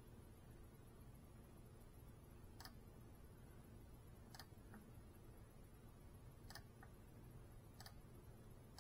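Near silence: a faint steady hum with a handful of faint, irregularly spaced clicks.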